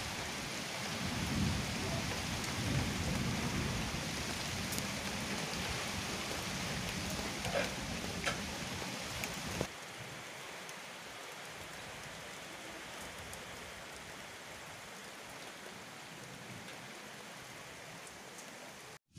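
Heavy rain pouring down during a thunderstorm, with low rumbles of thunder in the first few seconds. About ten seconds in the sound drops abruptly to softer, steady rain.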